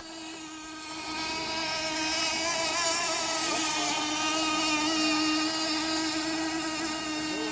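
Small model-boat engine running steadily at a high, even pitch, set rich on the carburettor needle for break-in. It is quieter for the first second, then comes up and holds.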